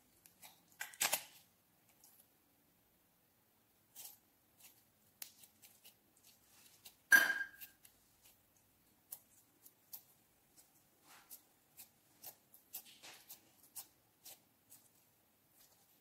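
Red clear slime being peeled out of a plastic cup and squeezed in the hands: scattered small sticky clicks and squelches, with a louder smack about a second in and a sharp, loud pop a little after seven seconds in.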